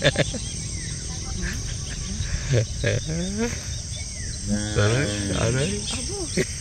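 Steady high-pitched chorus of crickets and other insects in a rural field. A few brief vocal sounds from a person break in around three seconds and again around five seconds in.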